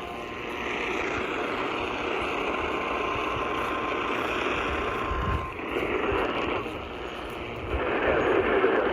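Weather radio receiver hissing with loud static from a weak signal, a faint steady tone under it until about halfway through. The static dips briefly, then grows louder near the end.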